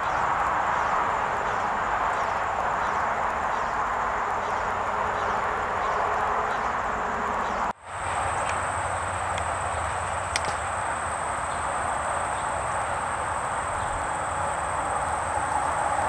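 Steady outdoor background hiss. After a cut about eight seconds in, a thin, high, steady insect trill joins it, and there is a single sharp tick about two seconds later.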